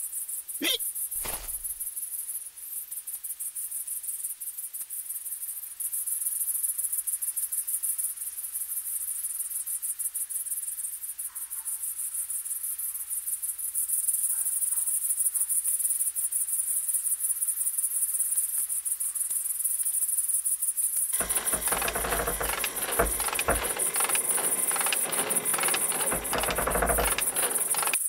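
Steady, high-pitched chirring of meadow insects (grasshoppers and crickets), a fast even pulsing trill. Two short sharp sounds come about a second in, and for the last several seconds a louder, fuller noise spanning low to high pitches joins it.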